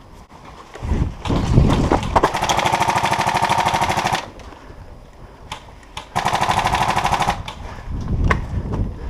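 Tokyo Marui AA-12 electric airsoft shotgun firing two full-auto bursts, its motor and gearbox whirring with a rapid even rattle: the first burst lasts about two seconds, the second a little over a second. Rustling movement noise comes before and after the bursts.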